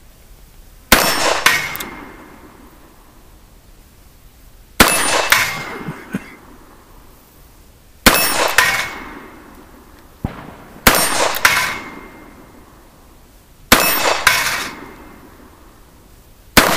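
Six shots from a Colt Agent .38 Special snub-nose revolver, a few seconds apart. Most are followed about half a second later by the ringing clang of a steel plate target being hit.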